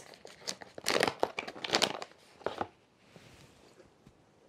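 Back Country Cuisine freeze-dried meal pouch crinkling and crackling as it is handled, a noisy run of crinkles that stops about two and a half seconds in.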